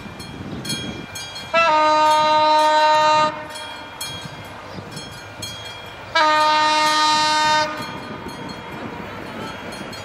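Class 240 electric locomotive's horn sounding two long blasts about three seconds apart as the train approaches a level crossing, over a quieter rushing background with faint regular ticking.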